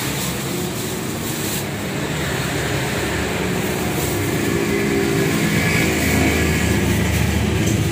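Steady street and traffic noise with a motor vehicle's engine running close by, humming a little louder toward the end.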